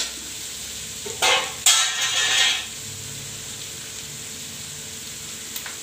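Sliced onions sizzling steadily in hot oil in a metal kadai, with two louder bursts of stirring with a steel ladle, about a second and two seconds in. The onions are being sautéed until they wilt.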